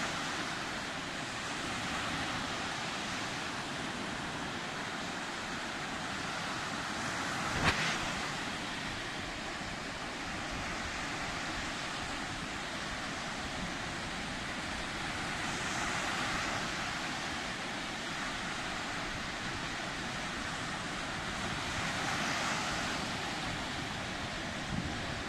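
Sea surf washing steadily, with waves swelling up twice in the second half. A single sharp knock about a third of the way in.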